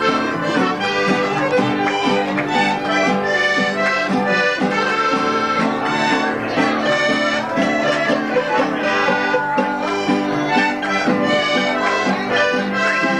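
Live button accordion playing with violin and guitars, the band going together over a steady strummed beat.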